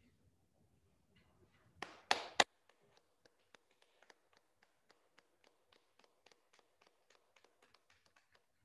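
Three sharp taps close together about two seconds in. They are followed by a quiet, rapid, even ticking at about four ticks a second.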